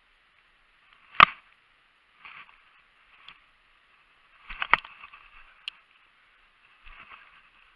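Two sharp knocks, the first about a second in and the loudest, the second near the middle, with soft rustling and brushing between them: the camera and compound bow being handled and bumped while moving through scrub.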